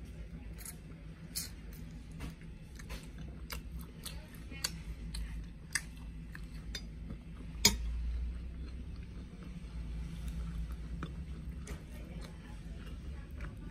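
Eating and food handling over a metal tray: scattered sharp clicks and clinks at irregular intervals, one much louder click about eight seconds in, over a steady low rumble.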